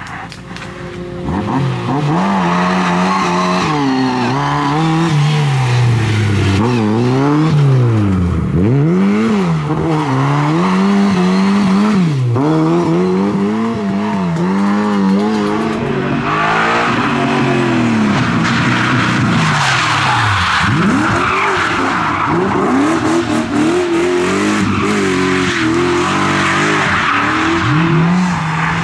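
Classic Lada saloon rally cars' four-cylinder engines revving hard, the pitch climbing and dropping again and again with each gear change and lift-off, with tyres skidding and scrabbling on dusty asphalt. The hiss of tyre and grit noise grows louder about halfway through.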